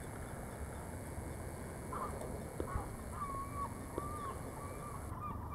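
A bird calling outdoors: from about two seconds in, a thin wavering call repeated in short pieces over a low, steady background rumble.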